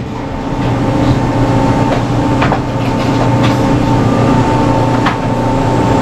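Overhead crane's electric hoist running under load: a steady low hum with a thin high whine over it and a few light clicks.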